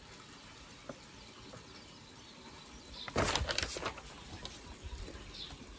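A sheet of paper rustling and crackling briefly as it is handled and put down, about three seconds in, with only faint background sound around it.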